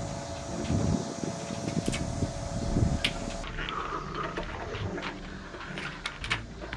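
Handling noise from a mast-climbing webbing ladder and rope, rustling with scattered sharp clicks, over a low wind rumble on the microphone. A steady hum in the first half cuts off abruptly about halfway.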